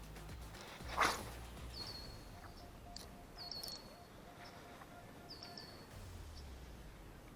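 A bird repeating a short, high chirped call of two or three quick notes every couple of seconds, with a brief rushing whoosh about a second in.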